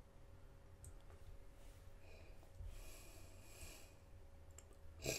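Near silence: faint room tone, with a soft breath from about two to four seconds in and a single short click near the end.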